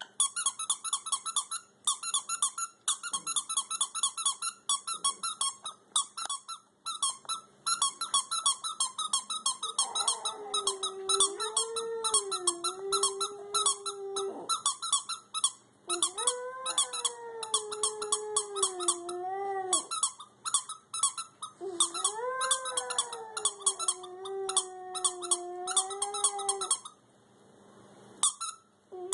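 A squeaky toy squeaking over and over in quick, sharp squeaks, with a Schipperke dog howling along to it. Three long, wavering howls of a few seconds each begin about ten seconds in. The squeaking stops shortly before the end.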